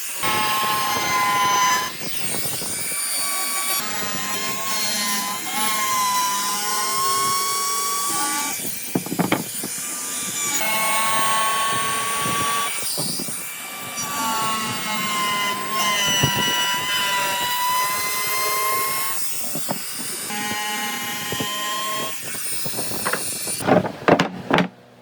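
A high-speed power tool cutting wood, a steady whine in long passes broken by short pauses. The whine stops about a second before the end, followed by a few sharp knocks.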